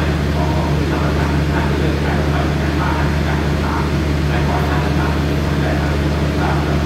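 Standing diesel passenger train at idle: a steady, even low hum from its diesel engines with no change in pitch.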